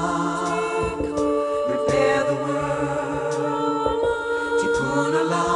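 Music: choir voices singing long held chords with no words, the notes changing every second or so.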